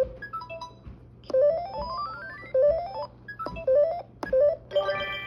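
LeapFrog Mr. Pencil's Scribble Write & Read learning toy playing electronic beeping notes as the Mr. Pencil stylus traces a letter: repeated quick runs of short synth tones stepping in pitch, mostly rising, with a brief chord near the end.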